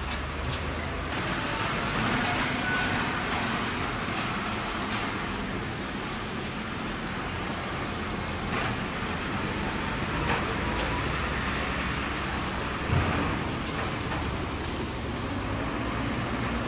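Steady outdoor noise of motor vehicles running, with a sharp knock about thirteen seconds in and a smaller one a little before.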